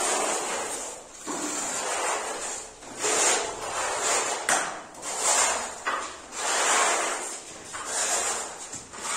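Putty knives scraping wall putty across a plastered wall in repeated sweeping strokes, about one a second, as the first coat is spread.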